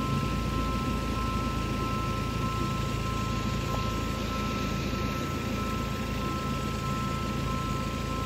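Level-crossing warning signal sounding a steady two-note tone while the barriers are down, over a steady low rumble.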